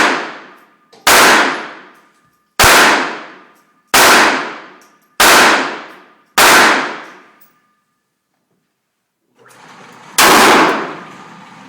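A .38-calibre revolver firing: six shots about 1.3 seconds apart, each cracking and then ringing away, then one more shot after a pause of about four seconds near the end.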